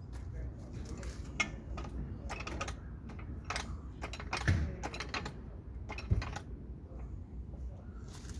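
Irregular metallic clicks and knocks of hand tools and parts being handled during work on a car's rear axle, with a few louder knocks among lighter clicks.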